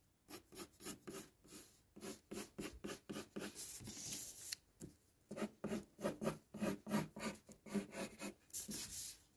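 Graphite pencil drawing on paper: quick repeated strokes scratching across the sheet, with a short pause a little before halfway.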